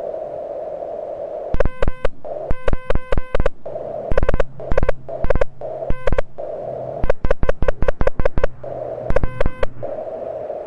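Morse code being sent on a Mountain Topper MTR4B QRP transceiver, heard as its keyed sidetone: quick dits and dahs in several groups, starting about a second and a half in. Between them is the receiver's narrow-filtered hiss, which cuts out while the key is down.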